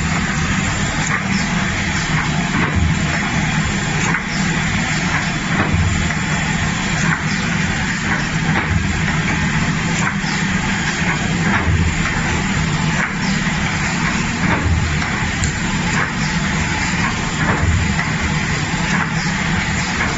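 ZX 930 automatic die-cutting and creasing machine running: a steady mechanical clatter and hum, with a low thump and clicks repeating about every second and a half as the machine cycles through the sheets.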